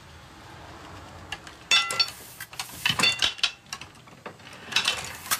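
Old letterpress printing press clinking and clicking as it is set up and starts a print. Its metal parts give a sharp ringing clink about a third of the way in, then a quick run of clicks and knocks, and another burst near the end.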